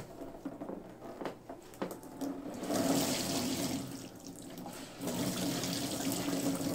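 Water pouring and splashing into a plastic basin as a soaked beach towel is wrung out by hand, with squelches and drips of the wet fabric at first, then two spells of streaming water, about two and a half seconds in and again about five seconds in.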